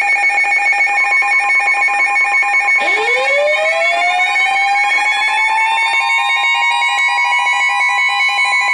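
Electronic alarm tone pulsing rapidly. About three seconds in, a warning siren starts winding up in pitch and settles into a steady wail over it.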